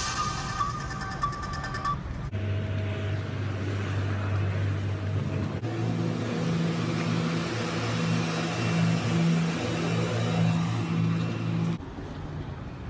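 A car engine running steadily with a low hum. The sound changes abruptly a few times, as at edits.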